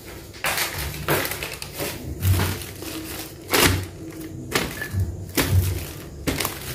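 Plastic bags rustling and crinkling in irregular bursts about once a second as they are handled and a zip-lock bag is pressed shut over a plate, with soft knocks against a stainless steel sink.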